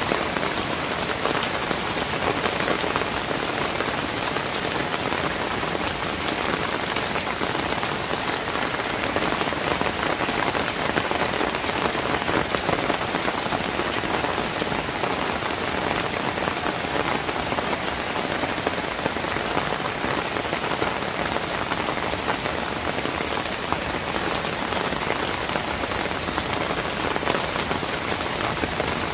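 Steady rain falling on wet pavement and leaves: a dense, even patter of drops that holds the same level throughout, with no thunder.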